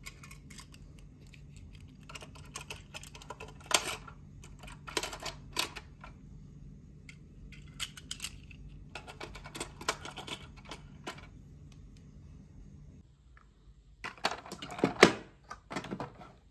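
A toy container truck being handled by hand: irregular small clicks, taps and rattles of its plastic parts and trailer doors, with a louder burst of clatter near the end as it is moved among other toys.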